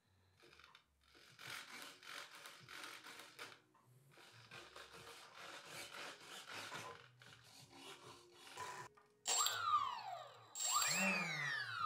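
Faint buzzing of the model's small servos as the control surfaces are moved. Then, near the end, the model's electric motor, with the propeller removed, is throttled up twice, each time giving a sudden whine that falls steeply in pitch as it winds down.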